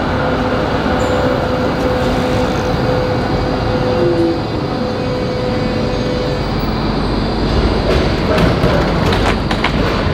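Melbourne Z3-class tram running in and rolling past at close range, slowing to a stop. A steady hum fades out about six seconds in, and sharp clicks and knocks come near the end as it comes to rest.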